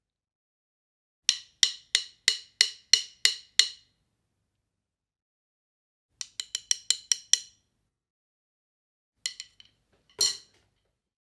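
Wooden Vic Firth 5AN drumsticks clicking. First comes a steady run of eight clicks at about three a second. Then a quicker, lighter run of about ten. Near the end there are two quick clicks and one fuller knock that rings a little longer.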